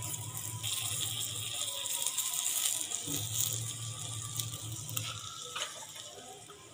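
Butter sizzling and crackling on a hot tawa around a frying cheese paratha as it is spread over the bread with a spoon; the sizzle dies down near the end.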